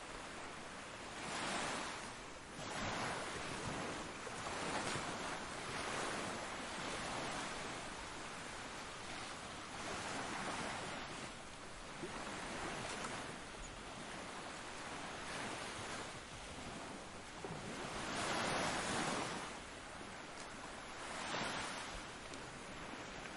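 Ocean waves washing ashore, a steady surf rush that swells every few seconds as waves break, with one larger wave late on.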